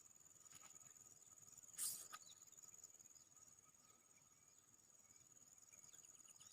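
Faint, steady high-pitched chirring of crickets and other insects, with a brief swish about two seconds in.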